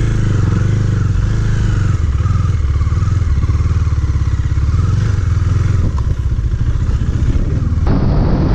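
KTM Duke motorcycle's single-cylinder engine running under throttle while being ridden over a rough dirt track, its pitch rising and falling with the throttle. The sound changes abruptly shortly before the end.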